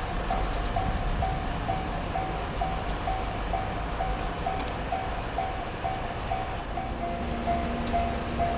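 Japanese level-crossing warning bell ringing steadily on its two alternating tones, a little over two strikes a second, the crossing held closed by a stopped train. A low rumble of idling traffic lies underneath, and a steady hum joins about seven seconds in.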